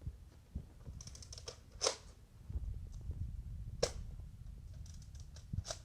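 Nerf Rival XV-700 spring blaster firing foam balls: three sharp snaps about two seconds apart, with a few lighter clicks before the first.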